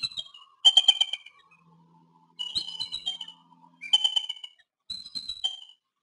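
Bald eagle calling: repeated bouts of high, piping, chattering whistles, each bout a quick string of short notes lasting half a second to a second.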